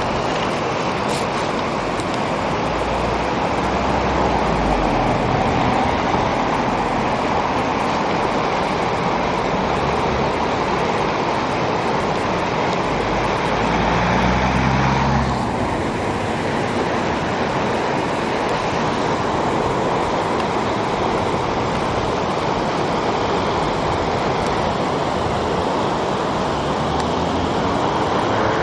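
River Suir in flood, fast water rushing over rapids in a steady loud rush, with a slight dulling of the high end about halfway through.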